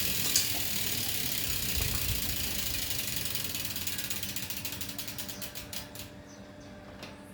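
Bicycle rear hub's freewheel pawls ticking as the wheel spins freely. The fast clicking slows to separate ticks and stops about six seconds in.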